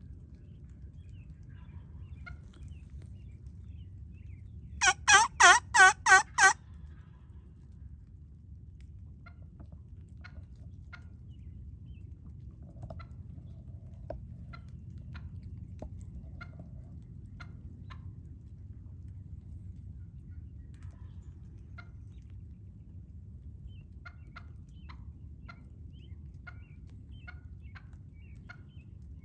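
A loud series of about seven turkey yelps, evenly spaced at roughly four a second, lasting under two seconds about five seconds in. Faint short ticks and a low rumble run underneath.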